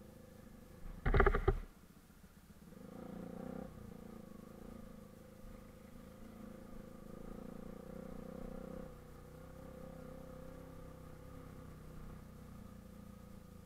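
Bajaj Pulsar RS200's single-cylinder engine running at low speed on a rough dirt road, rising a little twice as the throttle opens. About a second in, a horn sounds loud in two short honks.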